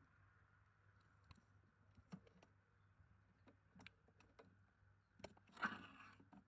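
Faint scattered clicks and knocks of plastic parts being handled, with a louder rustling scrape about five and a half seconds in, as a part is taken out of a wet and dry carpet cleaner.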